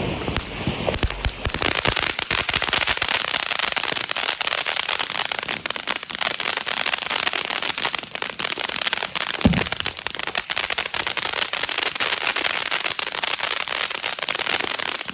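TNT Bottle of Sparks fountain firework burning with its crackling stars: a dense, continuous rapid crackle, with one louder pop about nine and a half seconds in, cutting off abruptly near the end.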